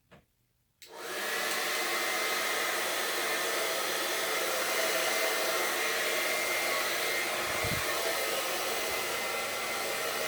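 An Xlinder 1875W AC-motor salon hair dryer, fitted with its diffuser attachment, switches on about a second in and runs steadily: a constant rush of air with a faint high whine.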